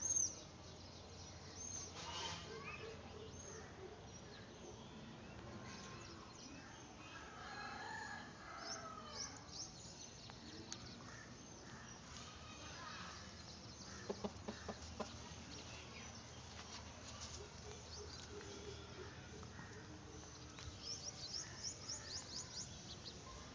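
Faint bird calls, with domestic fowl among them: scattered short high chirps, a cluster of lower calls about eight seconds in, and a quick run of high chirps near the end.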